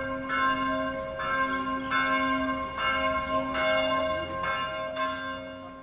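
Bells ringing, a new strike roughly every second over lingering, overlapping tones, fading out near the end.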